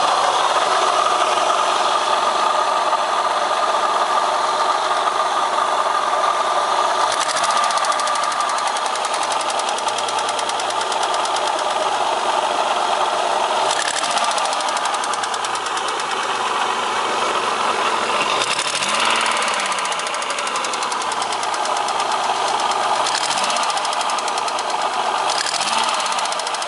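Opel X30XE 3.0-litre 54° V6 engine running with a knock. Its revs rise and fall briefly several times.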